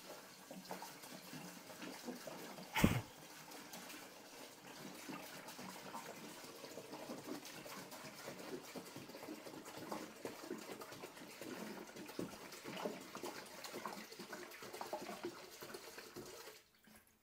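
Isopropyl alcohol pouring steadily from a plastic gallon jug and splashing into the Form Wash resin-washing bucket as it fills. A single sharp knock about three seconds in, and the sound cuts off abruptly near the end.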